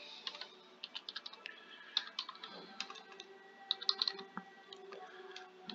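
Typing on a computer keyboard: faint, irregular keystrokes in uneven clusters.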